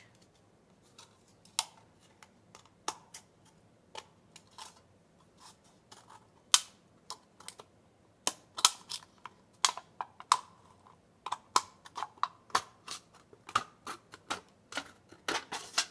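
Scissors cutting through the thin aluminum wall of a drink can along its bottom ridge: a string of sharp, irregular snips and crinkles, sparse at first and coming faster from about halfway through.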